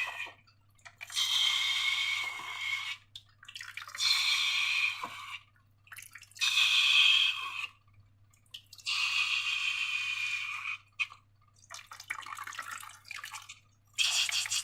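Liquid slime ingredients being squeezed out of a balloon in repeated spurts, about six of a second or two each, dripping and spattering with short pauses in between.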